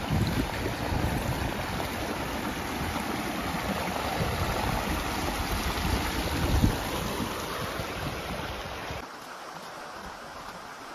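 Shallow river rushing over stones in a riffle, a steady water noise, with wind buffeting the microphone in low gusts. About nine seconds in it drops to a fainter rush.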